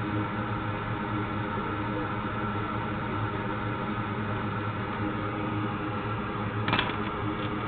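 Steady whirring hum of a small electric fan or blower on a repair bench, with a steady drone underneath. A short sharp click comes near the end.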